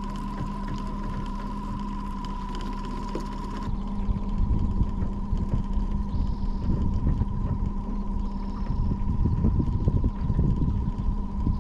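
A boat motor running steadily at trolling speed, a continuous hum. Low wind rumble on the microphone grows louder about four seconds in.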